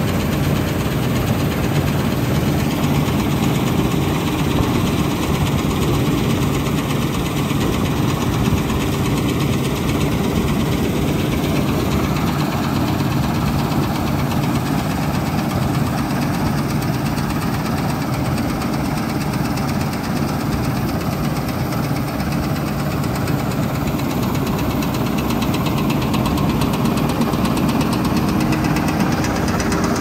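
Claas Dominator 88SL combine harvester running steadily while harvesting wheat: its diesel engine's steady low hum mixed with the rattle of the header and threshing machinery.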